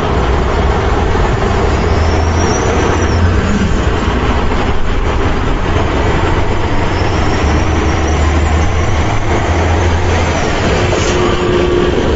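Steady vehicle running sound: a low rumble under an even hiss, with two faint high whistling glides.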